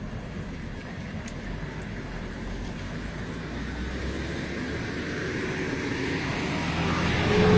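Flash-flood front coming down a dry gravel riverbed: a rushing rumble that grows steadily louder as the water approaches.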